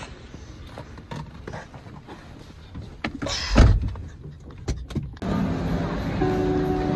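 Car door shutting with a heavy thud about three and a half seconds in, after some light knocks and handling noise. Background music comes in near the end.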